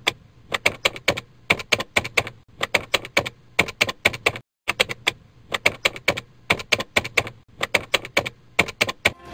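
Typing sound effect: sharp keystroke clicks in quick runs of a few at a time, with one short break about four and a half seconds in.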